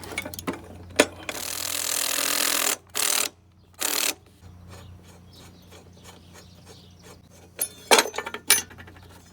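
Socket ratchet wrench with an 11/16 socket loosening a lawnmower blade bolt: sharp clicks, a loud rasping run of about a second and a half, two shorter runs, then faint ticking and a few more clicks and knocks near the end.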